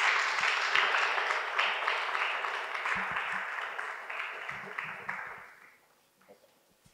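Audience applauding, the clapping tapering off and dying away about five and a half seconds in.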